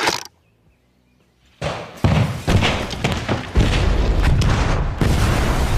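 Explosions: after a short silence come several sharp booms, then from about three and a half seconds in a heavy continuous rumble, like a large structure being blown up and giving way.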